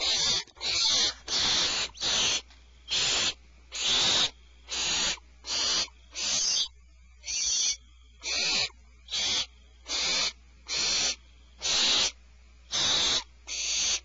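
Barn owls in the nest cavity giving harsh, hissing screech calls again and again, each about half a second long, a little under one a second.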